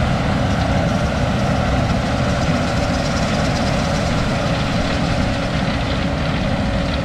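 Heavy diesel engine running steadily at a constant speed, a continuous low drone.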